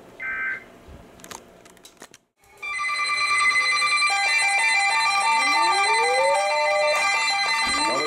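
A brief burst of Emergency Alert System digital header tones, a warbling data squeal. About two and a half seconds in, a loud, layered electronic tone sequence starts: steady high tones, a stepped pattern and a slow rising glide.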